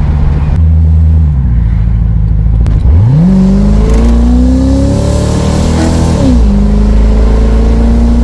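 C4 Corvette's L98 small-block V8 running, then accelerating hard from about three seconds in with its pitch climbing. Near the end the pitch drops sharply at an upshift, and the engine runs steadily in the next gear.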